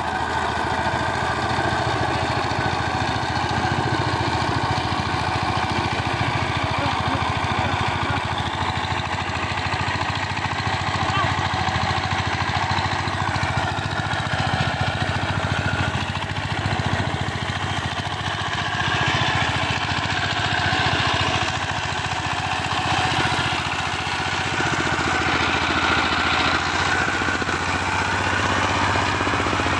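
Walk-behind power tiller's single-cylinder engine running steadily as the machine works through deep paddy mud.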